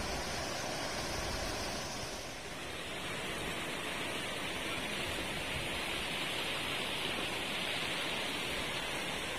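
River water rushing over rocks in shallow rapids, a steady rushing noise that turns brighter and more hissing about two and a half seconds in.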